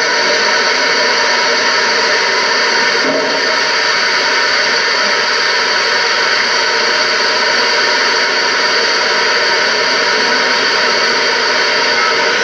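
Steady, loud hiss of static with no distinct events: noise on the soundtrack of an old videotape being played back.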